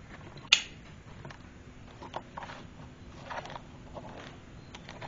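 Handling noise from a handheld camera being carried across a workshop: a sharp rustle against the microphone about half a second in, then a few soft scuffs and faint clicks.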